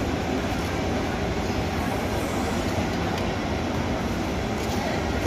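Steady rumbling noise, heaviest in the bass, with no distinct events.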